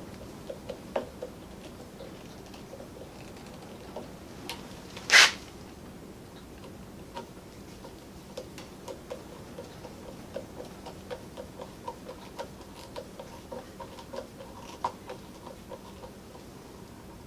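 A series of light clicks, at about two a second through the second half, with one short, sharp hiss about five seconds in.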